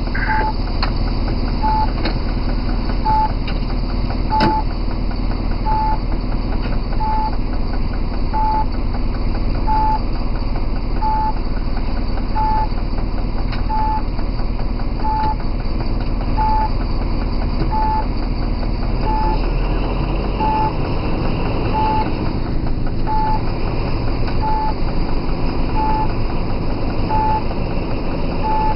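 Diesel locomotive heard from its cab: the engine running steadily under a short cab beep that repeats evenly about every 1.4 seconds. About 20 seconds in, the engine note changes and grows a little louder as the locomotive starts to move forward.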